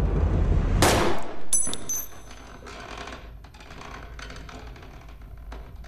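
A single pistol shot about a second in, over a low rumble, followed by a thin high-pitched ringing tone. Then it goes quieter, with faint scattered ticks.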